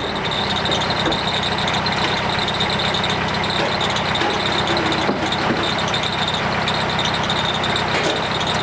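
Diesel engine of a truck-mounted forklift running steadily under load as the machine drives, with a steady high whine over the engine note.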